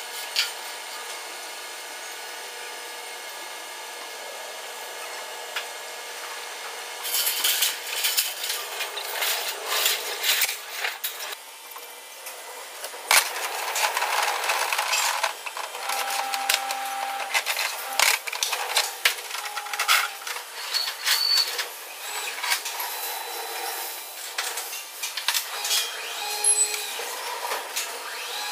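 Steel beams and crane chains being handled. A steady background hum, then from about seven seconds in, irregular metal clatter and scraping, with a few short squeaks.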